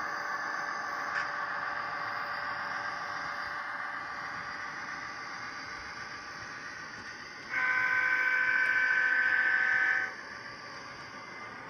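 The Tsunami sound decoder in an HO scale EMD SD45 model locomotive plays diesel engine running sound through its small onboard speaker. About seven and a half seconds in, a loud, steady multi-tone air horn sounds and is held for about two and a half seconds.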